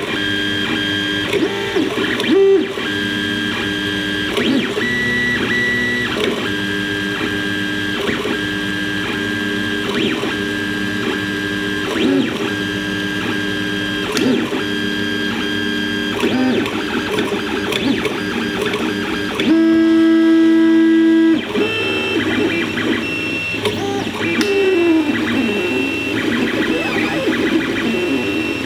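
FDM 3D printer at work, its stepper motors whining in steady tones that change pitch with each move of the print head, in a pattern that repeats about every two seconds. Around twenty seconds in, a louder tone holds for about two seconds, and a few seconds later a tone slides down in pitch.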